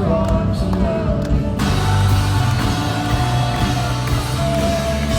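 Music with singing: long held vocal notes over a low accompaniment, the fuller band coming in about a second and a half in.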